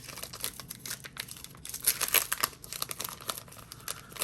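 A Pokémon card booster pack's foil wrapper crinkling and tearing as it is opened, in a dense run of quick crackles.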